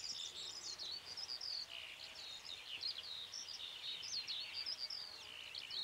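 High-pitched songbird song running on without a break: a dense stream of short, quickly varied chirps and trills.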